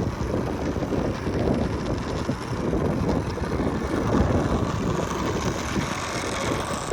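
Wind buffeting the microphone in gusts: a rough, rumbling rush that rises and falls irregularly.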